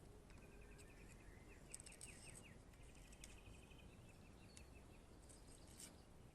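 Near silence, with faint trains of rapid chirping trills in the background and a few light clicks.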